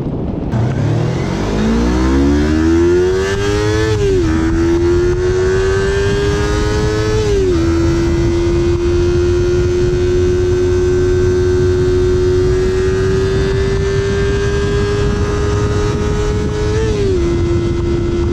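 Yamaha YZF-R series sport bike accelerating from low revs, the engine note rising steeply and dropping at upshifts about four and seven seconds in. It then holds a steady, slowly climbing note for about nine seconds before one more upshift near the end.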